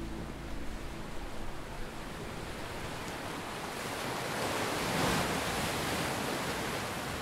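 Ocean surf breaking on the shore, a steady wash that swells to its loudest about five seconds in and then eases.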